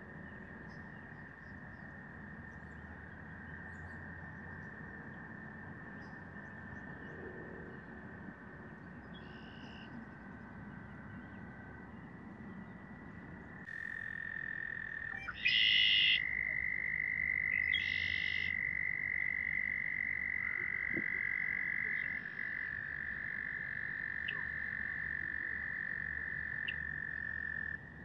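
A chorus of frogs trilling: several long, steady trills at slightly different pitches overlap, and get louder about halfway through. Two short, higher-pitched calls stand out over them near the middle.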